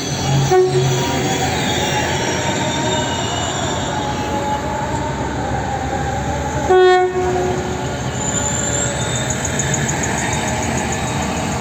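TCDD DE 36000-class diesel locomotive DE 36017 running steadily as it rolls slowly through the station, sounding its horn twice: a short blast about half a second in and a louder one about seven seconds in. A thin high squeal sets in about eight seconds in.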